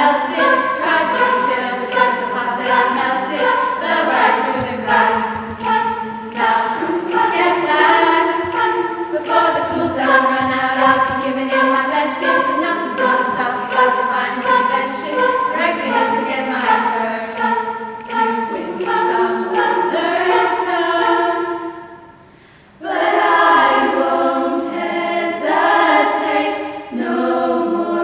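Girls' school choir singing unaccompanied. The voices break off for about a second a little over three-quarters of the way through, then come back in.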